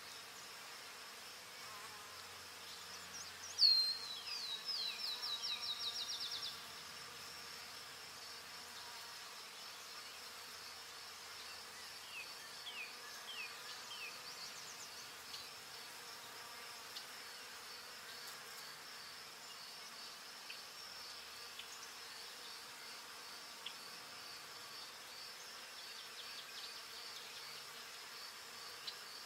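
Forest ambience: a steady high-pitched insect trill throughout. About four seconds in, a bird sings a rapid run of about a dozen notes that fall in pitch, the loudest sound; a few shorter bird calls follow later.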